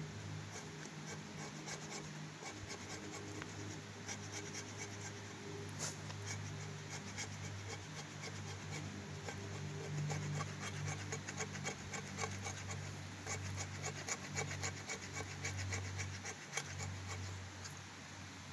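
The sharp spine of a kukri scraped repeatedly along wood, a run of short scratchy strokes that shave off fine tinder for a fire. A steady low hum runs underneath.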